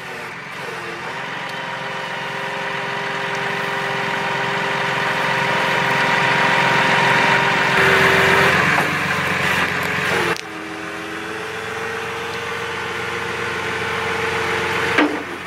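Service truck's engine running a truck-mounted hydraulic crane that is hoisting an elk carcass: a steady engine hum with a whine on top, growing louder over several seconds, dropping suddenly about ten seconds in, then building again.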